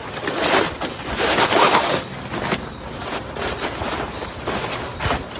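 Fabric carry bag and folded camping cot rustling and scraping as they are handled, in irregular swells with a few knocks.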